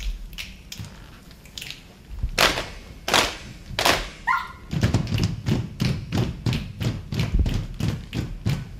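Saman dancers' hand claps and body slaps. A few scattered claps come first, then three loud claps about two and a half seconds in and a short vocal call. From about five seconds in, a fast steady rhythm of claps and chest or thigh slaps runs at about four a second.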